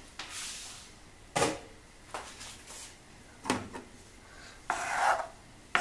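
Kitchen utensils being handled: three separate sharp knocks spread over a few seconds, then a short scrape near the end.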